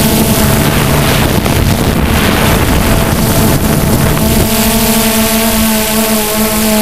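DJI Phantom 2 quadcopter's four electric motors and propellers, heard through the onboard GoPro as a steady droning hum. Wind rushes over the microphone from about half a second in until about four and a half seconds in, partly covering the hum.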